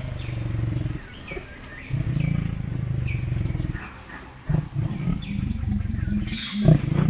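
Leopard growling in three long, low bouts, with short bird chirps above.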